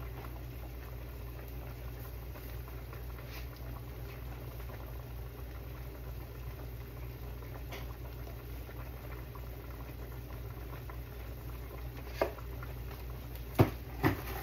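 Large stockpots of beef boiling on a stove: a steady bubbling hiss with a low hum underneath. A few short, sharp knocks near the end.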